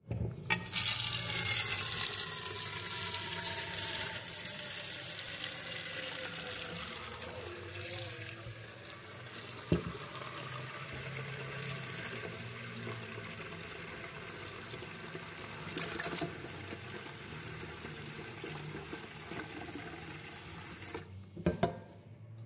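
Kitchen tap running into a metal cooking pot of rice in the sink, filling it with water. The rush is loudest for the first few seconds, then softer as the pot fills. It stops about a second before the end, followed by a few clicks.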